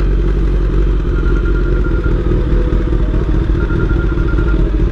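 Motorcycle engine running steadily at cruising speed, with a heavy low wind rumble over the microphone.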